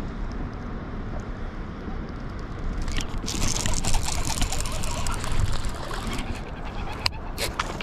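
Wind rumbling on the microphone over open water, with a rushing hiss from about three to six seconds in and a few sharp clicks near the end.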